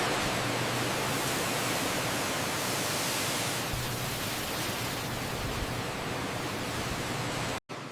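Steady, even hiss with a faint low hum under it, cutting off abruptly near the end.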